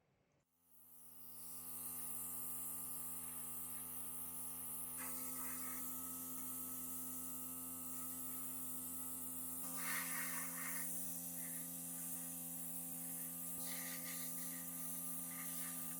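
A small electric motor spins up and runs steadily with a high hiss over its hum, its tone shifting slightly twice, with short scratchy bursts now and then.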